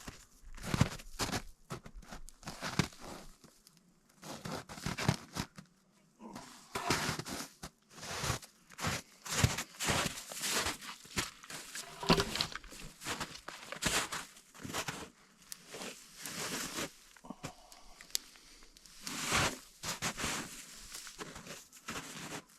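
Irregular crunching and rustling with scattered sharp cracks: a person walking about and handling brush and debris.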